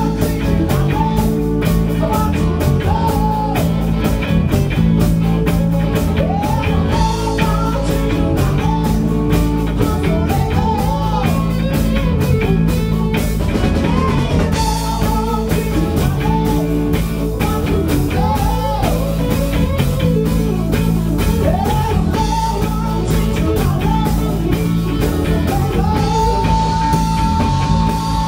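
Live rock band playing: a woman singing lead over electric guitars, electric bass and a drum kit, with a long held note near the end.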